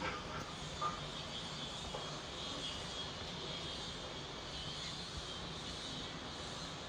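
Strong, gale-force wind blowing steadily, with a brief knock about a second in.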